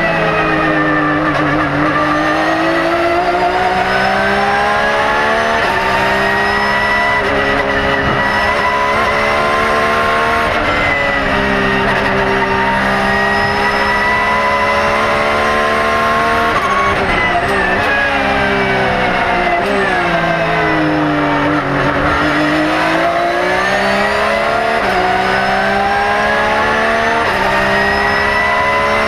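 Porsche 911 GT3 R's naturally aspirated flat-six race engine at racing speed, heard from inside the cockpit. The revs climb through the gears in stepped stretches with quick gear changes, fall away under braking near the start and again about two-thirds of the way in, then climb once more.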